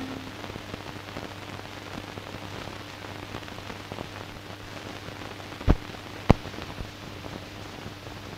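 Crackle and hiss of a degraded 16 mm film optical soundtrack running with no programme sound, over a faint steady hum, with two sharp pops a little over half a second apart past the middle.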